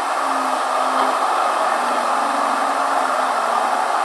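Steady rushing background noise with a faint low hum, unchanging throughout.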